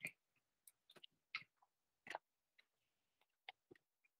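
Near silence broken by faint, irregular clicks of a computer keyboard and mouse, about eight in all, as numpad keys and the middle mouse button are pressed.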